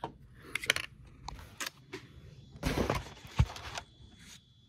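Light clicks and scrapes of a plastic fork against an opened tin of fish. Then about a second of rustling with one sharp knock partway through.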